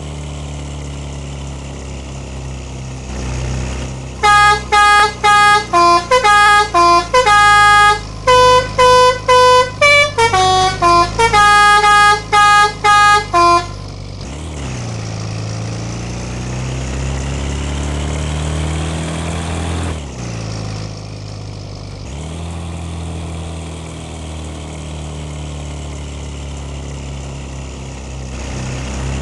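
A bus's 'telolet' horn, a multi-tone musical air horn, plays a quick tune of short notes of changing pitch over the running bus engine. About fourteen seconds in the tune stops and the engine's pitch rises, drops, and rises again.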